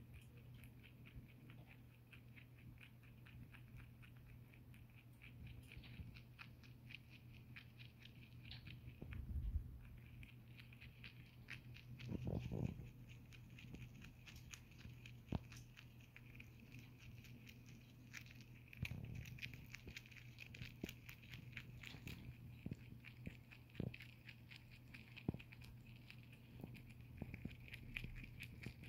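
Lionhead dwarf rabbit chewing dry hay: a fast, steady run of faint crunching clicks. A few soft low thumps come through it, about a third and two-thirds of the way in.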